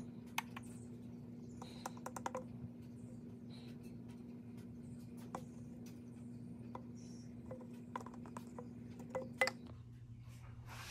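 Faint scattered clicks and light taps of an oil-additive bottle being handled at an engine's oil filler neck, with a quick run of clicks about two seconds in and two sharper ticks near the end, over a faint steady hum.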